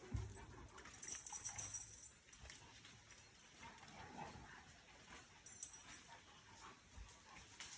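Faint sounds of dogs moving about: scattered light clicks and scuffs, with two short hissy noises, one about a second in and one past the middle.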